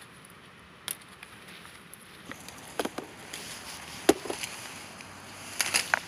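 Hand-picked silver vine fruits dropping into a wicker basket: a few separate sharp knocks and clicks, the loudest about four seconds in and a quick cluster near the end.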